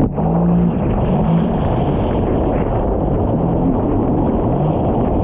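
Sea-Doo jet ski engine running under way, its pitch wavering slightly up and down under a steady rush of noise.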